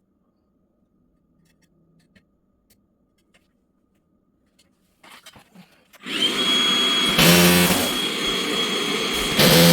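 A few faint handling clicks and a short rattle, then about six seconds in an electric power tool starts and runs loudly with a steady high whine, surging briefly twice.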